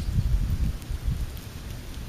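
Wind buffeting the microphone: an uneven low rumble, with a few faint clicks.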